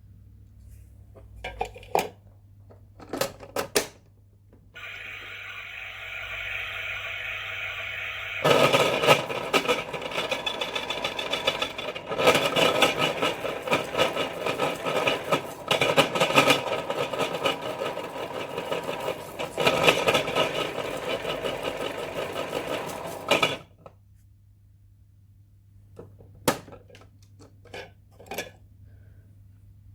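A toy dishwasher's small electric motor starts after a few clicks with a steady whir. A few seconds later it turns much louder and rattly, runs for about fifteen seconds, and cuts off suddenly, followed by more clicks.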